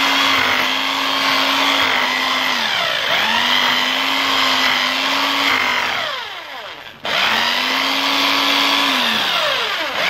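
Handheld electric drill boring into a plastered wall, its motor running at a steady pitch. The motor dips in pitch briefly about three seconds in, winds down and stops about six seconds in, starts again sharply a second later, and winds down again near the end.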